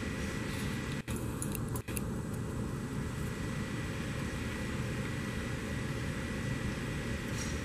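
Steady mechanical hum and hiss with a faint high whine. A few light metallic clicks about a second in, from a small ratcheting wrench on the wiper basket nuts.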